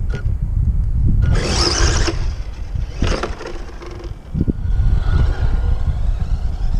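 Radio-controlled car driving on rough asphalt, with two bursts of hissing tyre and motor noise as it passes close, and a faint thin whine a few seconds later as it runs off. A heavy low rumble lies underneath.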